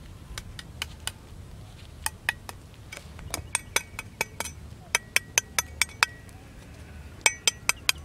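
Steel meat cleaver chopping a crumbly lump on the ground: sharp clinking strikes in quick runs of about five a second, with short pauses between runs.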